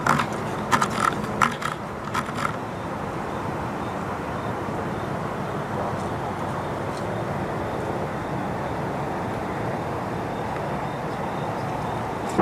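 A steady low rumble of running machinery, with a handful of sharp metallic clicks in the first two seconds or so.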